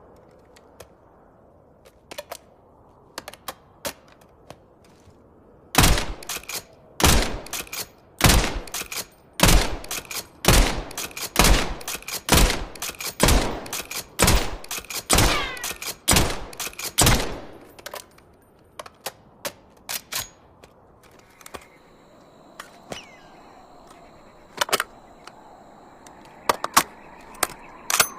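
Suppressed Essex model 07 lever-action rifle firing about a dozen shots in a row, roughly one a second, with the lever's metallic clicks between shots. Scattered mechanical clicks come before and after the string of shots.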